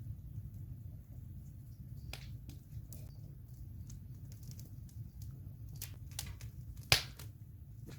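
Campfire crackling: scattered sharp pops of burning wood over a steady low rumble, with one loud pop about seven seconds in.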